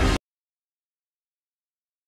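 Complete silence, after a loud full-range sound with a deep steady bass cuts off abruptly just after the start.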